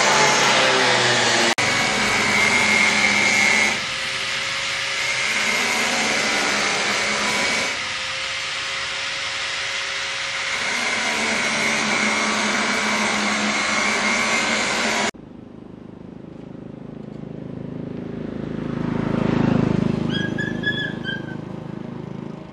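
Thaco Kia light truck's engine running steadily, cutting off suddenly about two thirds of the way through. Then a motorbike passes on the road, swelling and fading, with a few short high tones near its loudest point.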